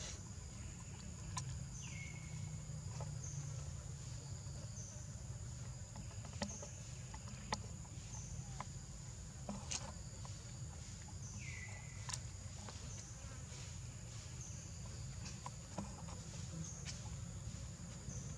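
Steady high-pitched drone of insects, with a short chirp repeating about once a second, over a low steady rumble. Scattered sharp clicks are heard, and a brief downward-sweeping call comes twice, about 2 and 11 seconds in.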